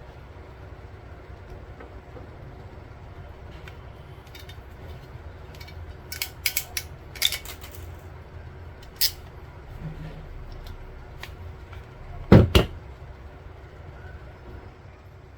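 Small clicks and knocks from hands working a network cable, RJ45 connector and pliers, with a cluster of sharp clicks about six to eight seconds in and two louder knocks in quick succession about twelve seconds in, over a steady low rumble.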